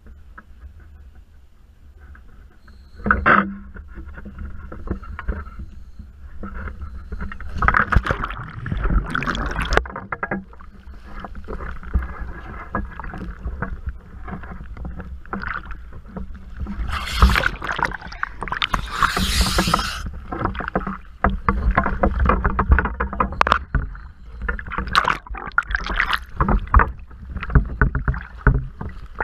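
Scuba diver entering the sea from a boat: a sudden splash about three seconds in, then water sloshing and splashing around the camera at the surface, swelling and falling with the waves.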